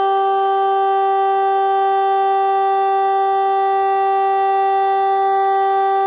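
DS 977 civil-defence siren sounding a steady, unwavering tone held at one pitch, as in a siren test.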